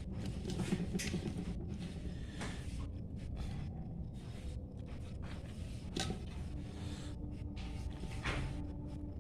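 A few short knocks and clicks of things being handled, over a low steady rumble; a faint hum comes in about two-thirds of the way through.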